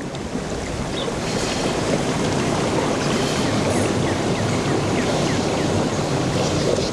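A small boat under way across floodwater: a steady rushing noise of water and wind buffeting the microphone.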